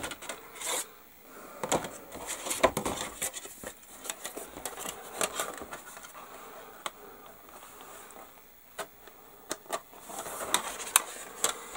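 Hard injection-moulded plastic model kit parts being handled: irregular clicks, taps and light scrapes as the large wing pieces are put down on the bench and pressed together, with busier clusters of clicks near the start and near the end.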